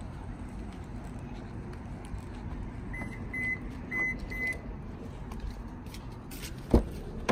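Footsteps on asphalt over steady outdoor background noise; about three seconds in come four short high electronic beeps, and near the end a single sharp clunk as the car door latch is opened.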